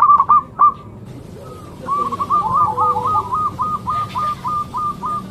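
Zebra dove (perkutut) cooing: a few loud notes at the start, then, after a short pause, a long run of quick, evenly spaced coos, about three or four a second.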